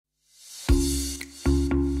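Intro music: a hissing swell rises out of silence, then deep bass notes are struck twice with light percussive clicks between them.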